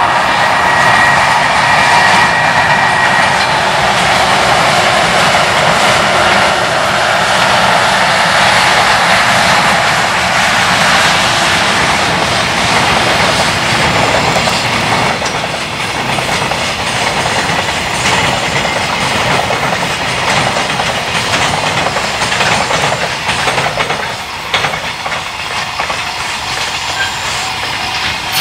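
Long freight train of container wagons passing at speed on electrified main line, its wheels rolling with a continuous rumble and clickety-clack over the rail joints. The sound eases off a little after the middle, and sharper joint knocks stand out near the end.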